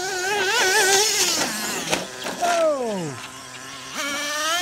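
Freshly tuned Traxxas Nitro Slash's 3.3 nitro two-stroke engine running strong as the RC truck drives. Its revs waver up and down at first, drop steeply about halfway through, idle low briefly, then climb and hold higher near the end.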